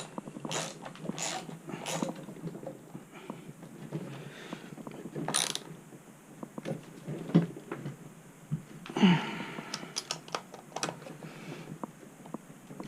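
Hand tools and metal parts being worked during reassembly: scattered clicks, scrapes and rattles, with a quick run of clicks about ten seconds in.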